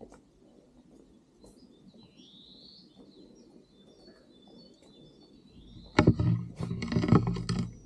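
Small songbird giving short, rising chirps every second or two. Near the end, a loud crackling, rustling noise lasting about two seconds drowns them out.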